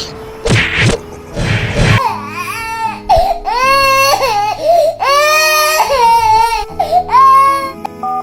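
Two heavy hits in the first two seconds, then a high-pitched crying wail in several drawn-out, wavering cries over background music.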